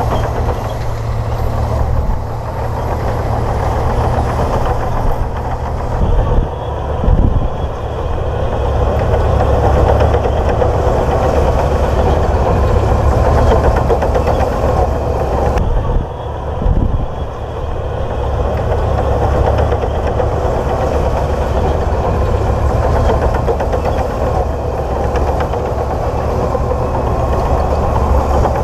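Komatsu D58P bulldozer's diesel engine running steadily under load with a low drone, its level briefly dipping and surging about six seconds in and again about sixteen seconds in.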